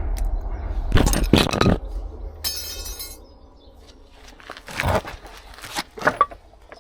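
Metal tools and parts clinking and knocking: a loud cluster of knocks about a second in, a short ringing clink about two and a half seconds in, and a few sharper knocks near the end.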